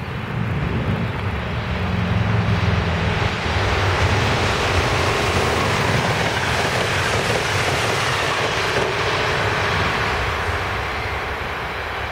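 Amtrak electric passenger train, an electric locomotive with stainless Amfleet coaches, passing at speed: the rush of wheels on rail builds over the first few seconds, holds, then fades near the end.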